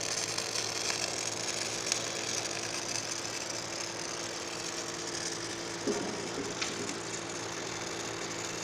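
MIG (gas metal arc) welding arc crackling and sizzling steadily over a steady low hum.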